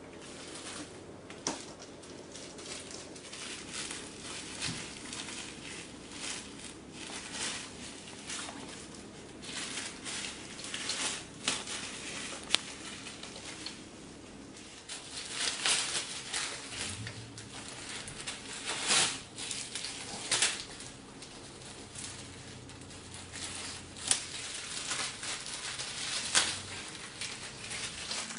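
A cat scrabbling at, biting and tearing open a bag of catnip on a wooden floor. Irregular crinkling and rustling with scattered taps and a few sharp snaps.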